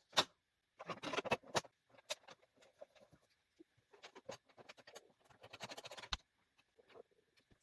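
Sewing machine parts being handled by hand: irregular small clicks and scratchy rustles, with a sharp click just after the start and another about six seconds in.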